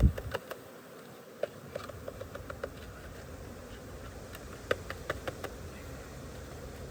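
Honeybees from a package buzzing as they are installed into a hive. A heavy thump opens it, and several short runs of light clicks and taps come through it.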